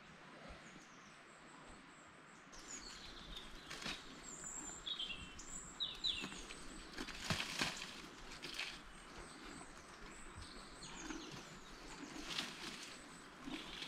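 Small birds chirping and singing in short high calls that start a few seconds in, over a faint steady outdoor hush, with a few brief sharp noises in between.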